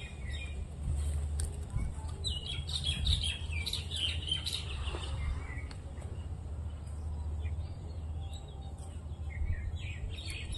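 Birds chirping in quick little runs, busiest a couple of seconds in and again near the end, over a steady low rumble.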